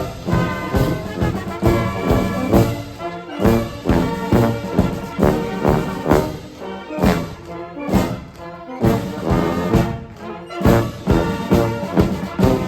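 Military brass band playing a march, with brass chords over a steady drum beat of about two strokes a second.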